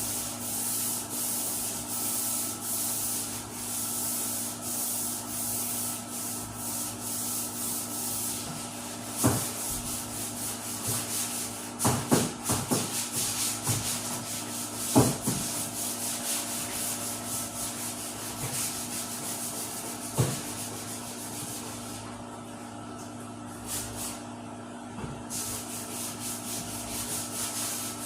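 Sandpaper rubbed by hand across a 1997 Buick Riviera's trunk lid in even back-and-forth strokes, about two a second, as the final sanding before a silver base coat. A few sharp knocks fall in the middle, and the rubbing eases off for a few seconds near the end.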